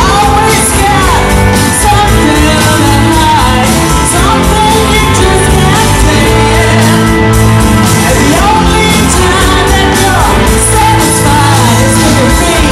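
Live band playing amplified music, with a singer over electric guitars, bass and drums.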